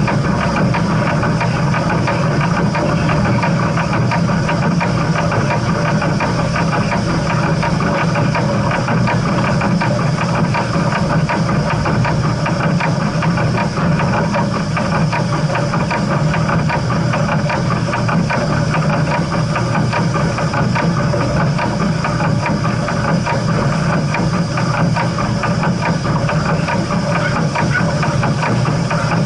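Steam train with a steady low rumble and a hiss that stay even and unbroken throughout.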